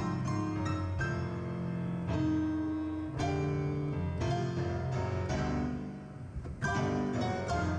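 Yamaha MM8 keyboard with a piano sound, played four-hands by two players: a run of struck chords and melody notes that ring on, with a brief quieter moment before a strong chord near the end.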